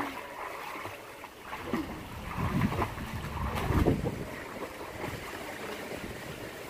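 Wind rumbling on the microphone, uneven, with a couple of stronger gusts around the middle.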